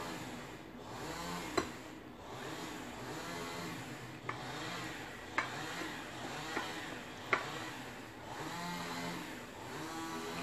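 A person eating rice by hand: chewing and mouth sounds, with hands working the food on a ceramic plate and five short, sharp clicks.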